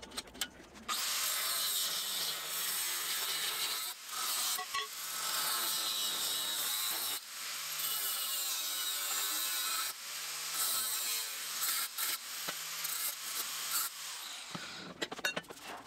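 Angle grinder working on steel, a loud hiss running in stretches of a few seconds with brief breaks between them.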